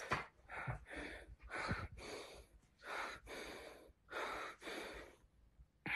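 A man breathing heavily close to the microphone: about a dozen quick, noisy breaths in and out with short gaps, then a brief pause near the end.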